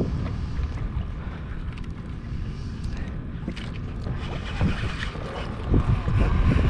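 Wind buffeting the microphone over water lapping at a small boat's hull, as a low steady rumble that gets louder and gustier in the last second or two.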